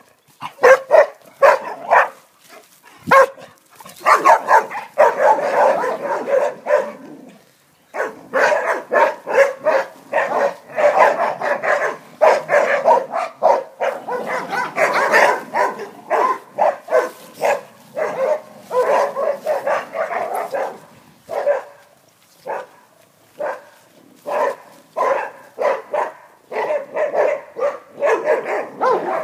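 A pack of Australian Shepherds barking in a raucous, rapid, overlapping chorus, with a brief lull about seven seconds in.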